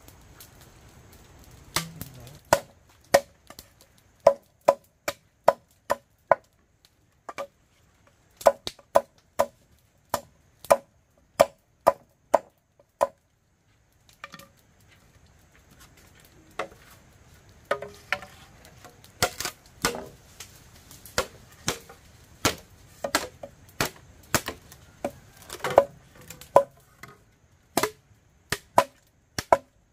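Repeated chopping strokes, each a sharp knock with a short ring, about two a second; they break off briefly about halfway through and then resume.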